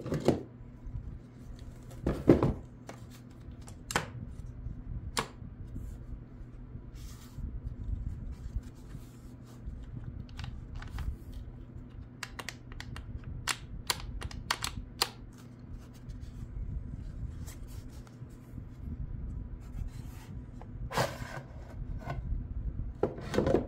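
Handling noise: irregular plastic clicks and taps, with a few louder knocks about two seconds in and near the end, over a steady low hum. No chainsaw motor is running.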